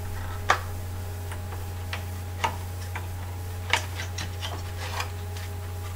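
Light, irregular clicks and taps of a SATA cable's plastic connector being fitted and handled on a computer motherboard, over a steady low hum.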